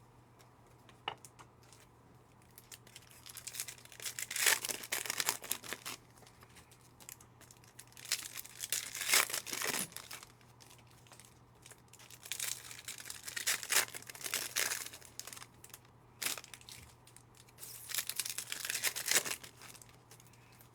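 Foil card-pack wrappers being torn open and crinkled, in four separate bursts of crackling with short pauses between.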